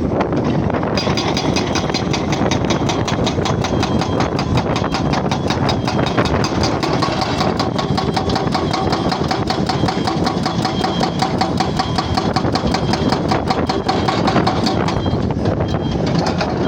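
Jackhammer breaking, a fast, even hammering that starts about a second in and stops near the end, over a steady engine running throughout.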